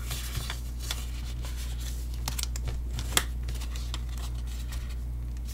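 Scored white cardstock being folded and rubbed with a bone folder: papery scraping and rustling, with a sharp tap a little after three seconds in.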